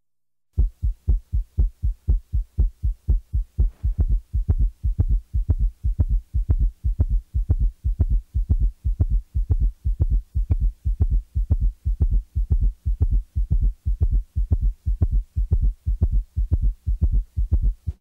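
Rapid heartbeat heard through a stethoscope with a summation gallop: the third and fourth heart sounds merge into one loud extra sound in diastole. It falls midway between the second sound and the next beat's first sound, giving a fast galloping rhythm of low thumps.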